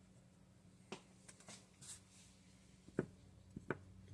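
A few faint clicks and taps of small engine parts being handled, the sharpest about three seconds in, over a faint room hum.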